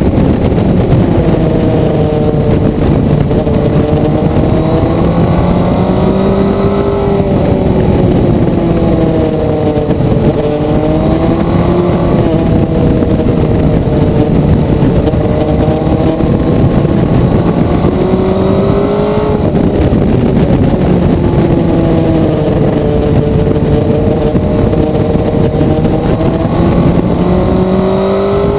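Motorcycle engine pulling hard and easing off again and again, its note climbing and then dropping back several times, over a heavy steady rush of wind noise.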